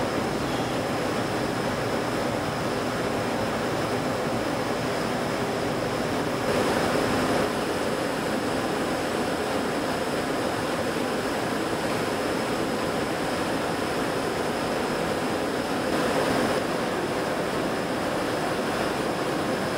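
EDRO DynaWash three-pocket end-loader washer-extractor running: a steady rushing noise with a faint, high, steady whine. It swells briefly about six and a half seconds in and again near sixteen seconds.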